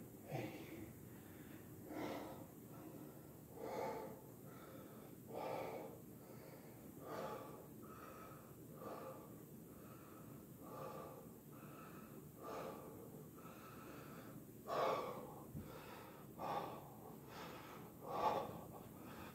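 A man breathing hard and rhythmically through an open mouth, out of breath after about 80 push-ups, with one breath about every second and a half to two seconds. A couple of the breaths, late on, are louder.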